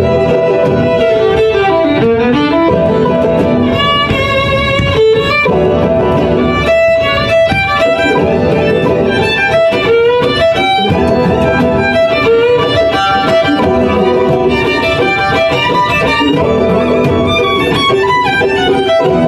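Bluegrass band playing an instrumental passage with the fiddle out front, over acoustic guitar, mandolin and upright bass.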